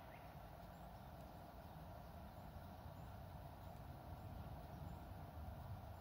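Faint, steady outdoor ambience: a low rumble and a steady hum, with one faint, short bird chirp right at the start.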